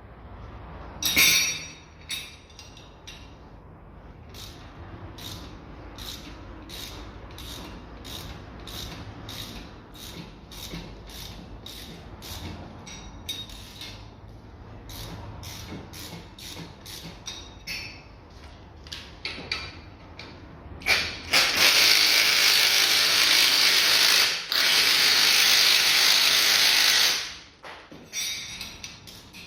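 Hand ratchet clicking steadily, about two clicks a second, as it turns the strut's top nut off the shock absorber shaft. It is followed by a loud, steady rushing noise for about six seconds, broken briefly once.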